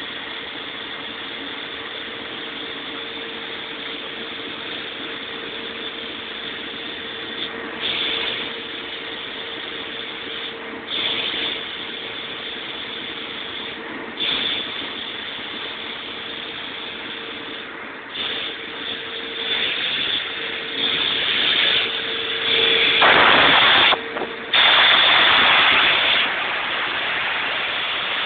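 Sullair 16-100 portable air compressor running steadily with a constant tone, while bursts of compressed air rush out every few seconds, growing longer and louder about two-thirds of the way in.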